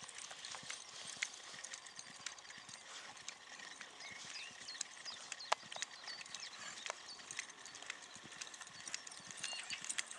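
Horse's hooves beating on a sand arena surface at a canter, an uneven run of soft thuds and clicks.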